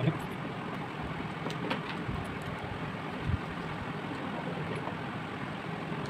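Steady low background rumble, with a few faint clicks and a soft knock about three seconds in as the metal motor housing and its end cover are handled.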